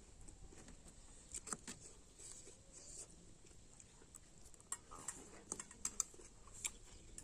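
Eating sounds while noodles are being eaten: faint, irregular soft clicks and taps, a few at a time, every second or so.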